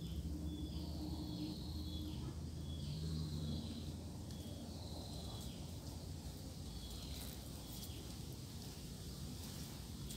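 Swamp ambience: an animal's short high-pitched call repeated about once a second, over a low steady hum. A few faint clicks come near the end.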